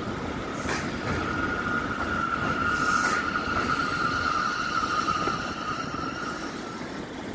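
R179 subway train pulling into an elevated station and braking, its rumble carrying a steady high squeal for most of the approach. Two short hisses sound, one just under a second in and one about three seconds in.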